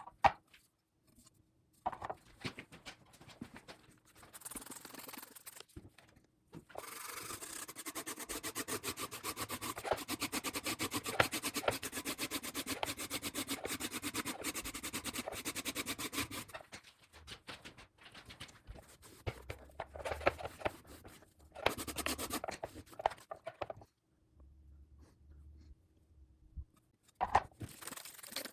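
Brush scrubbing a table saw blade with rapid back-and-forth strokes, loosening pitch and resin buildup softened by degreaser. The scrubbing comes in a long spell and then several shorter spells, with handling noises and brief pauses between them.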